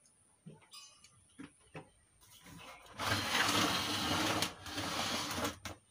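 Small clicks of handling, then a CRT TV's plastic cabinet scraping across a wooden workbench for about three seconds as the set is slid and turned, with a short break midway.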